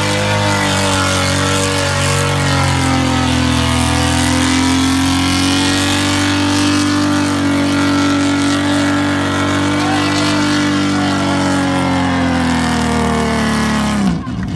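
SUV engine held at high revs as it churns through a mud bog, its note sagging and climbing slowly. It drops off abruptly near the end.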